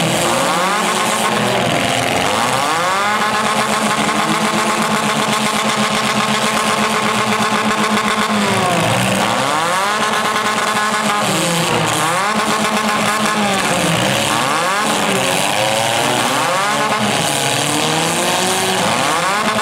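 Demolition derby cars' engines revving hard, several at once: the engine pitch is held high for a few seconds, drops, and climbs again several times as the cars push and ram.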